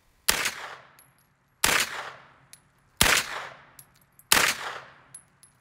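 Diamondback DB9R 9mm semi-automatic carbine fired four times, one shot about every 1.3 seconds, each report fading into a short echo. A short high ting follows each shot.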